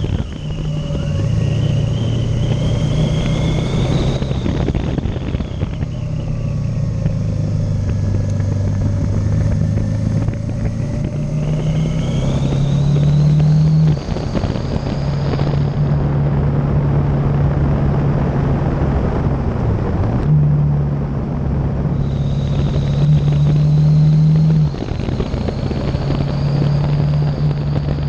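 Motorcycle engine running under way on a winding road, heard from a camera on the bike. The engine note climbs steadily with speed, then falls suddenly, about halfway through and again near three-quarters through, before climbing again.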